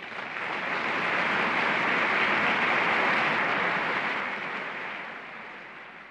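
Audience applause, swelling in the first second and fading out over the last two seconds.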